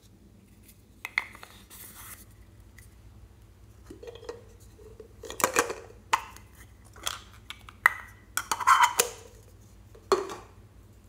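Small plastic makeup containers handled and opened by hand. Irregular sharp clicks and knocks of plastic lids and cases, with short rustling handling noise in between.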